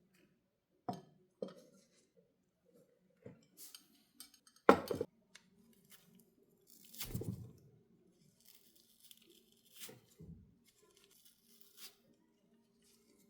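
Scattered light clicks, taps and rustles of small parts being handled by hand, with a sharper knock about five seconds in and another about two seconds later.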